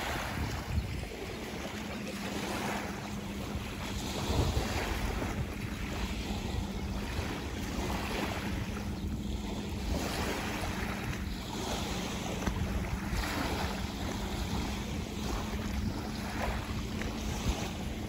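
Sea waves washing onto the shore in irregular surges every second or two, with wind buffeting the microphone and a faint steady low hum underneath.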